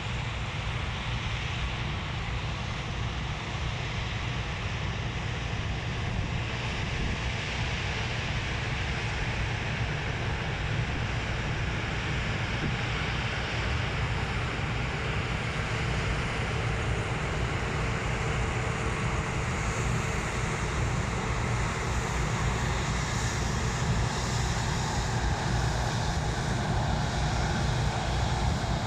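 Heavy harvest machinery running steadily with a low engine drone, growing slightly louder toward the end, with wind noise on the microphone.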